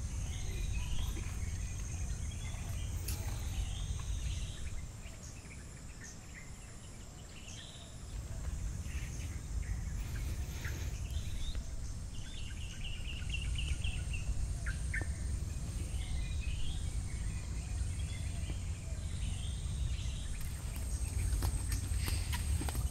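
Several birds calling in short chirps, with a rapid trill near the middle, over a steady high-pitched insect drone and a low rumble.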